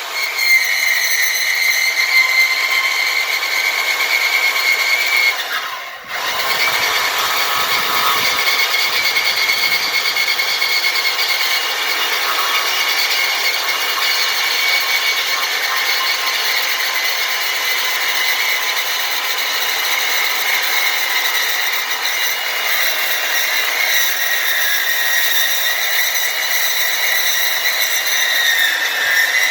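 Bauer portable bandsaw (porta band) running under load, its Milwaukee blade cutting through 2x3 by 3/16 steel stock. It makes a steady, high whine that stops briefly about six seconds in, then starts again and runs on through the rest of the cut.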